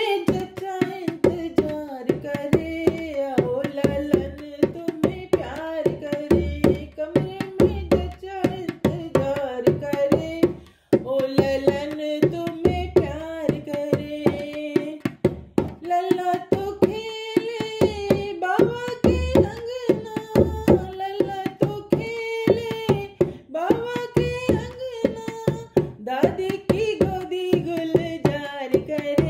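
A woman singing a sohar, a Hindi folk song for a baby's birth, with a steady hand-played percussion beat. The singing stops briefly about eleven seconds in, then starts again.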